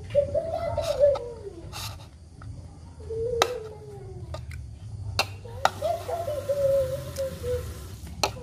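A metal spoon clicking and scraping against a melamine bowl several times. Three long, wavering tones sliding down in pitch are heard in the background.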